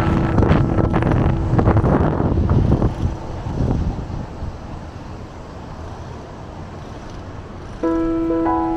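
City traffic and road noise with wind buffeting the microphone, loud for the first three seconds and then settling to a lower steady hum. Music with sustained bell-like tones comes in about a second before the end.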